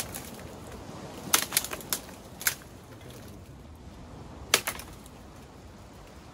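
A quick run of sharp clicks a little over a second in, then single clicks at about two and a half and four and a half seconds, over a steady low hiss.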